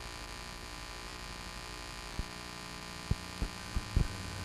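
Steady electrical mains hum with a buzz of many overtones on the recording, with a few short, soft low thumps in the second half.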